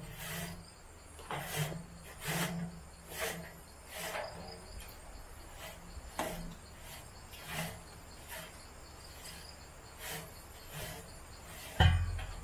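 Repeated sweeping strokes of a long-handled broom scraping wet fallen leaves across a metal mesh deck, about one stroke a second, with one heavier knock near the end.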